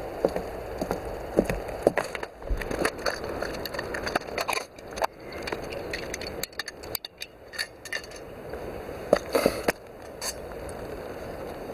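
Irregular clicks, knocks and light clatter of hard objects being handled.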